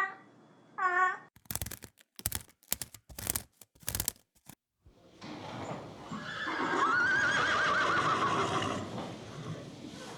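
A cat meows briefly, then a run of sharp knocks follows, and then a horse whinnies with a long wavering call over a noisy background.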